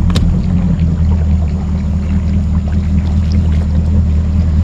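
Bass boat's outboard engine idling steadily, a low even drone, with a single sharp knock just after the start.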